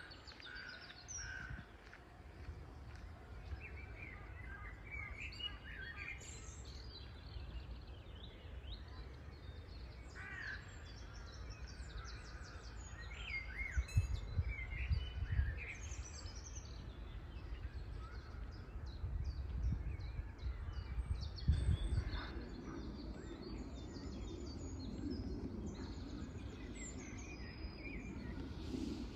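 Birds chirping and calling again and again in short, high chirps and trills, over a steady low rumble that swells briefly about halfway through and again about three quarters of the way in.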